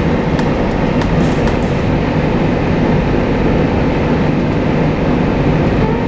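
Steady, loud road and wind noise from inside a vehicle travelling at speed: an even low rumble with hiss over it, unbroken throughout.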